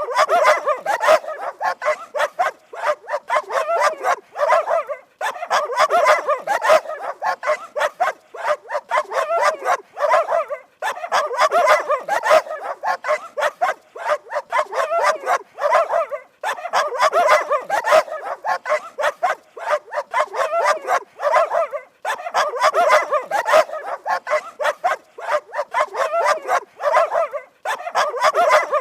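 Dog barking rapidly and repeatedly, several barks a second, in runs of a few seconds broken by short pauses.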